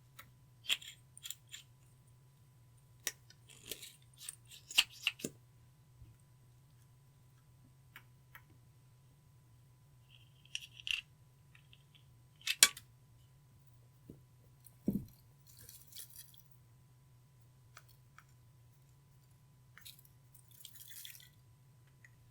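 Clear slime being mixed: scattered sticky clicks and small pops, a few of them sharp, over a faint steady hum.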